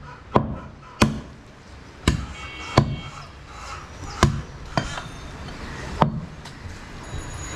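Heavy butcher's cleaver chopping goat meat on a round wooden chopping block: about seven sharp chops, roughly one a second at an uneven pace.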